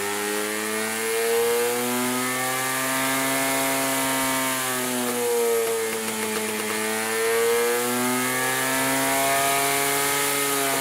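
Home-made 175 cc single-cylinder two-stroke engine running, its pitch wavering gently up and down as the speed shifts slightly.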